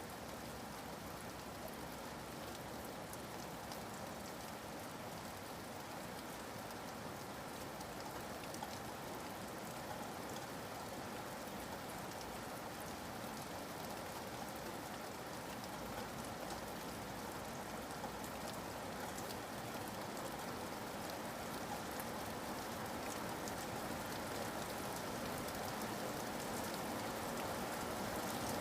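Steady rainfall, an even hiss with many small drops ticking here and there, growing slightly louder near the end.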